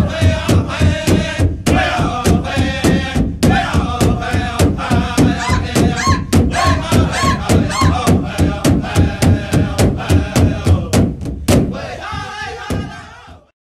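Drum song: a steady drumbeat, about three beats a second, under a group of chanting voices. The drumming stops a little after eleven seconds, and the rest fades out near the end.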